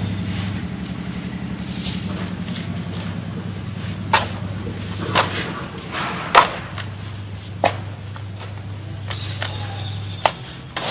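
Dry sand, ash and cement powder scooped by hand and poured back into a plastic tub: a soft hiss of falling powder, with several sharp taps and a steady low hum underneath.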